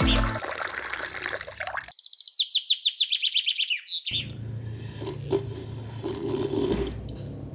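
Water poured from a small cup into a little bowl, then about two seconds of rapid, high bird-like chirps falling in pitch, then a low, rough watery sound.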